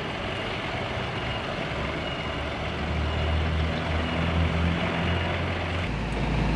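Hino 500 concrete mixer truck's diesel engine running while the drum is washed out after a pour, its low hum rising about two seconds in and holding for a few seconds. Near the end the sound changes abruptly to the truck's engine under way on the road.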